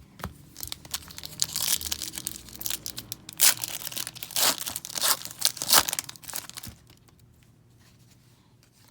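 Upper Deck hockey card pack being torn open and its foil wrapper crinkled: a quick run of sharp tearing and crinkling that stops a little before the end.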